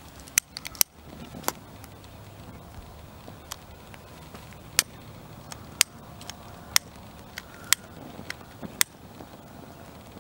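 About a dozen sharp, short clicks and snaps at irregular intervals over a faint steady hiss, made while lighting balls of gauze soaked in lighter fluid.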